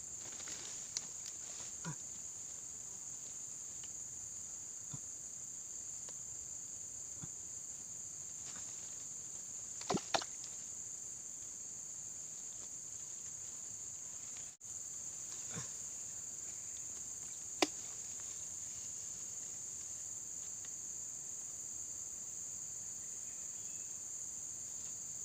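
Steady high-pitched chirring of an insect chorus, crickets in the swamp, with a few short sharp clicks or knocks, the loudest about 10 and 17 seconds in.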